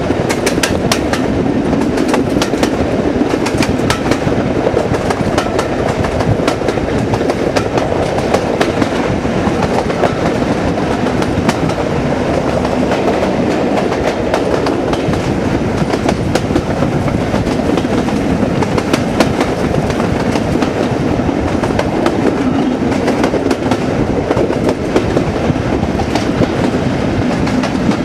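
Class 37 diesel locomotive 37109 with its English Electric 12CSVT V12 engine running under power, heard loud and steady from an open window of the coach behind. The wheels click over rail joints throughout.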